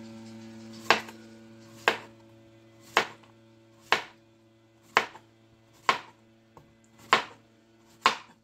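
Kitchen knife slicing rounds off a zucchini, each cut ending in a sharp knock on a plastic cutting board: eight even chops, about one a second.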